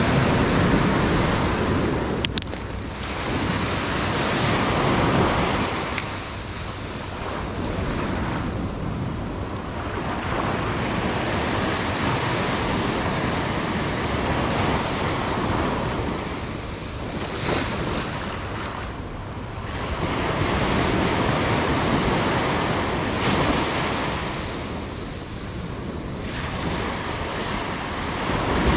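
Small surf breaking and washing up a sandy beach, the wash swelling and ebbing every few seconds, with wind rumbling on the microphone.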